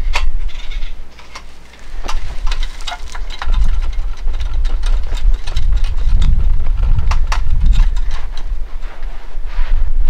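Wind buffeting the microphone in uneven gusts, with scattered small clicks and rustles as a cloth rag is rubbed over the painted canvas.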